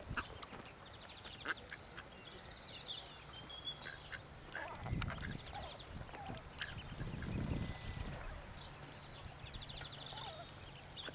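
Mallard ducklings peeping: short runs of rapid high-pitched peeps, again and again. Two spells of low muffled noise come about five and seven and a half seconds in.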